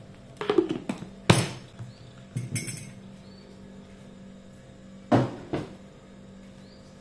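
Kitchen containers and utensils being handled on a counter: a few sharp knocks and clinks, the loudest about a second in and a pair more about five seconds in.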